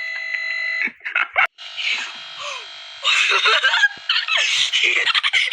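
Harsh, distorted electronic buzzing: a steady held tone for the first second, then a few brief cut-outs, then rough, noisy bursts with the tone running through them.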